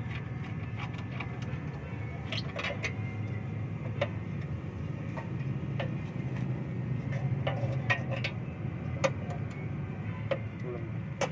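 Scattered light clicks and knocks as tools and the car's underbody panel are handled during work under the car, over a steady low hum.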